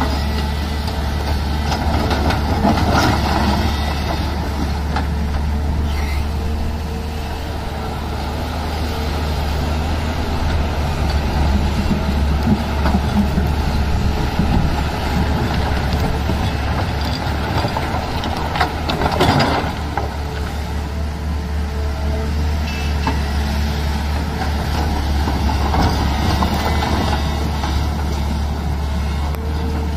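Tata Hitachi EX215 hydraulic excavator's diesel engine running steadily with a deep drone while the machine digs and swings through broken rock. There are louder spells of rock scraping and tumbling a few seconds in and again about two-thirds of the way through.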